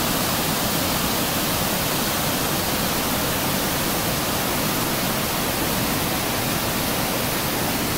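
Waterfall: white water rushing over rock rapids, a loud, even rush with no let-up.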